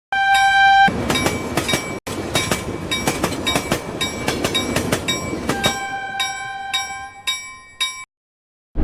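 Train sounds: a short horn note, then quick, regular clacking with a ringing clink on each beat, then a second, longer horn note. It all cuts off suddenly about eight seconds in.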